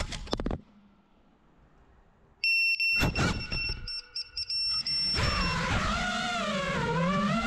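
A few sharp knocks as an FPV quad crashes onto concrete, then a couple of seconds of near quiet. The downed drone's buzzer then sounds a run of high, shrill beeps in an on-off pattern, and about five seconds in music with a wavering melody starts.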